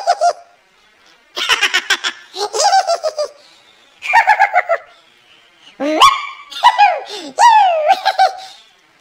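High-pitched cartoon giggle: a series of short bursts of rapid, pulsing laughter, most sliding down in pitch, with brief pauses between them. In the later bursts the laugh swoops up and then down in pitch.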